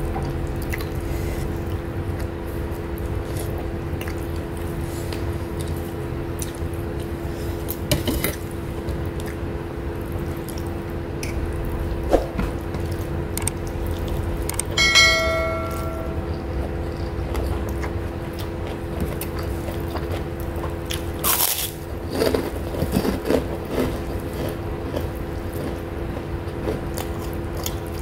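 Close-miked eating sounds of someone eating fish and rice by hand, faint chewing and small mouth clicks over a steady electrical hum. About halfway through, a short bell-like chime of about a second, the sound effect of a subscribe-button animation.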